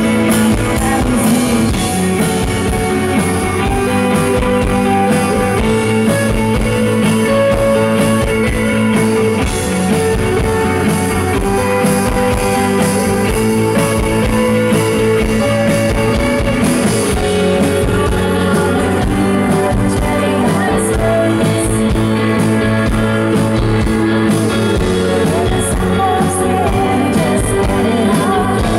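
Rock band playing live: electric guitar, bass and keyboards over a steady beat, with a woman singing.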